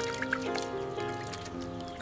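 Background music with held melodic notes, over light splashing of water as fish are washed by hand in a metal basin.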